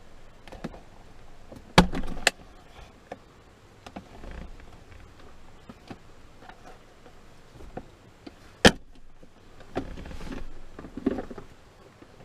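Plastic clicks and knocks from a 2012 Ram 1500's centre-console lid and its broken latch being pushed and pulled by hand. Two sharp snaps come close together about two seconds in, and a louder single one near nine seconds, with light ticks and handling noise between.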